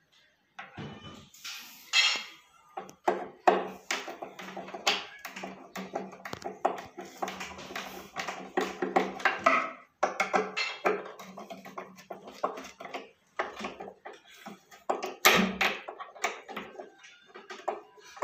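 A screwdriver driving screws through a wooden drawer front into a metal pull handle: irregular clicks, scrapes and knocks of the tool and the handle against the wood, with a few louder knocks.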